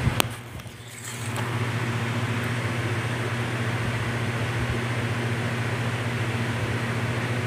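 Steady electric hum with a hiss of moving air from a fan running in the room, with a single sharp click just after the start.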